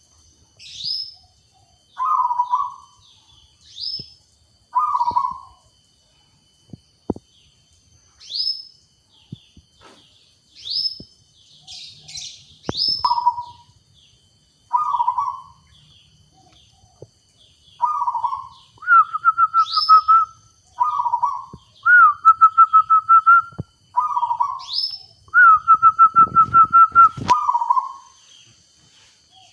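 Zebra dove (perkutut) cooing: short rolling coos every two seconds or so, then in the second half longer coos with a fast, even trill. Short, higher rising chirps fall between the coos.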